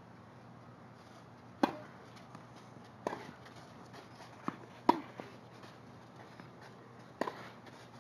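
Tennis ball hit back and forth in a rally: the serve is struck about a second and a half in, then sharp pops of racket strings on the ball follow every second or so, two of them close together near the middle.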